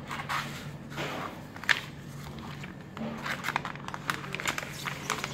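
Clear plastic bag rustling and crinkling as a salmon fillet on a cardboard board is slid into it, in irregular crackly bursts that grow busier in the second half. A low steady hum runs underneath.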